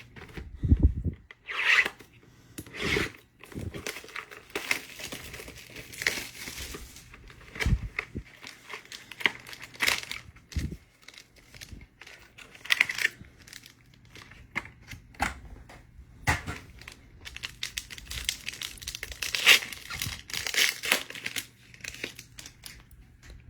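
Trading card packs being torn open: irregular sharp rips and crinkling of the wrappers, over and over.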